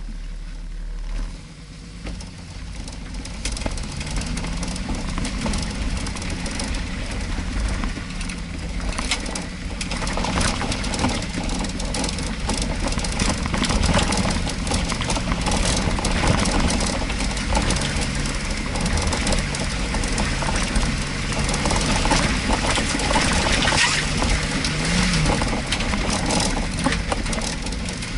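Jeep Wrangler engine running at low speed as it crawls along a rough dirt track, its pitch wandering slightly, with frequent knocks and rattles from the bumpy ground.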